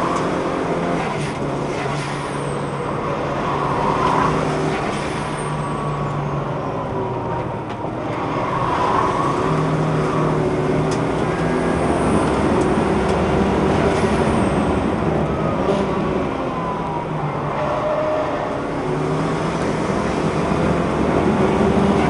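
Car engine heard from inside the cabin while it is driven hard around a race circuit on slick tyres, its revs repeatedly climbing and dropping back through the gears.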